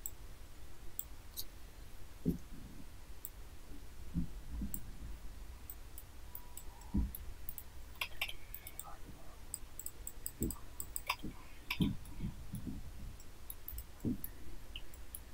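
Computer mouse clicking now and then, with a few soft thumps, over a faint low hum.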